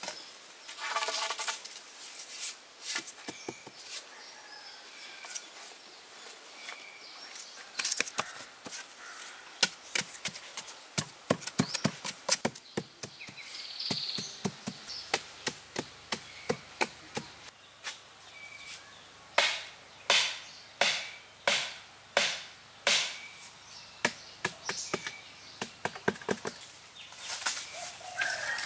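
A wooden stick striking and jabbing into sandy soil while wooden stakes are worked into the ground: irregular dull knocks, coming in quicker runs of strikes in the middle and again later.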